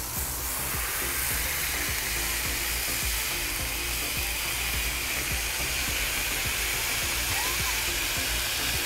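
Beef smash-burger patty sizzling steadily on a hot flat-top griddle while a burger press is held down on it.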